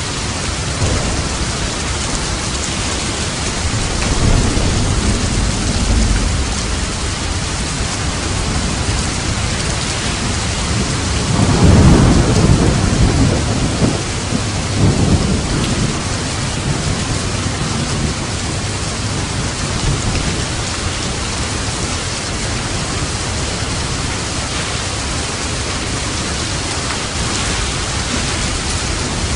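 Steady heavy rain, with rolls of thunder rumbling under it: a weaker roll about four seconds in and the loudest about twelve seconds in.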